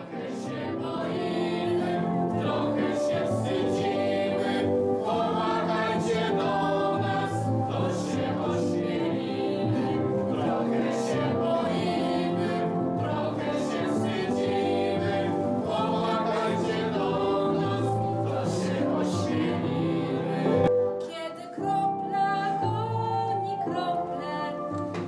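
Several voices singing a song together over instrumental accompaniment.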